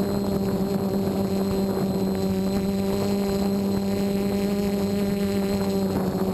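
DJI F450 quadcopter's electric motors and propellers droning steadily at a constant pitch in flight, heard from the camera on board.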